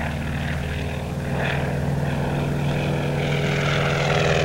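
Biplane's piston engine and propeller droning steadily in flight, growing slightly louder.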